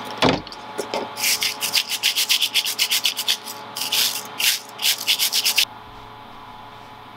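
A trigger spray bottle squirts once or twice, then a brass wire hand brush scrubs a small rusty metal part in quick back-and-forth strokes, about four or five a second. The scrubbing stops suddenly near the end, leaving a faint steady hum.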